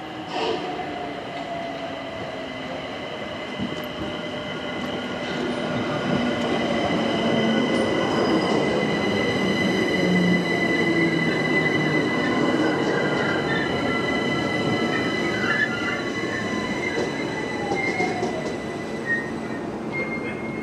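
London Overground Class 378 electric multiple unit running into the platform and slowing to a stop: wheel and brake squeal held as a steady high-pitched tone over the rumble of the carriages, with a whine that falls in pitch as the train comes to a stand near the end.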